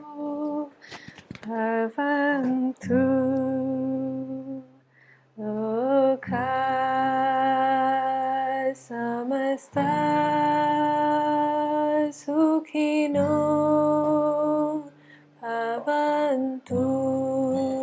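A woman singing slow, wordless-sounding phrases of long held notes, like a lullaby, with a lower sustained tone beneath some phrases.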